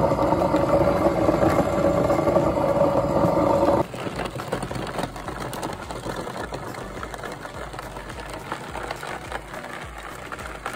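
Homemade bucket shredder driven by a washing-machine motor, running with a steady hum as it grinds dry manure. About four seconds in the sound drops suddenly to a quieter grinding, full of small ticks as shredded bits spray into the bucket.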